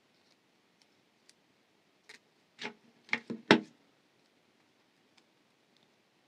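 Metal jewelry pliers clicking and knocking while bending wire loops and being set down on the work surface, a few faint ticks and then a cluster of louder clicks and knocks about two to four seconds in, the loudest near three and a half seconds.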